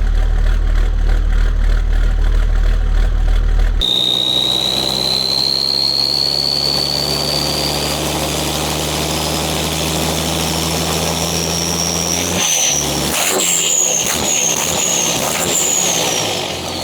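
An engine running with a steady low hum. About four seconds in, the sound changes abruptly to a lower drone with a high whine over it. The whine slowly rises in pitch, wavers a few times near the end, then falls away.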